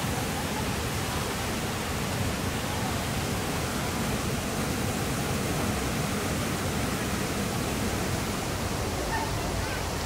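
Waterfall pouring into a churning plunge pool: a steady, even rush of falling and tumbling water.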